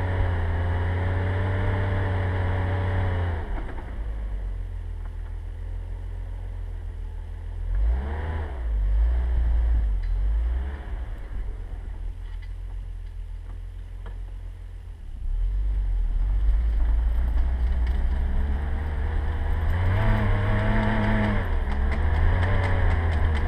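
Volvo C303 (Tgb 11) military off-roader's straight-six petrol engine working through deep snow, revving up and down. It drops off after a few seconds, gives two short rev bursts midway, then pulls loud again for the last several seconds with more revving near the end.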